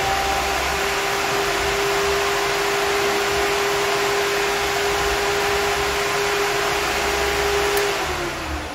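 Spal 12-inch electric radiator cooling fan running on 12 volts, a loud rush of air with a steady hum. Near the end it is switched off and the hum falls as the fan spins down. This is a bench test showing the untested fan works.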